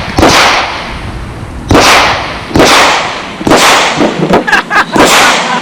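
Handgun gunshots: five loud, sharp shots spaced roughly a second apart, each with a short ringing echo.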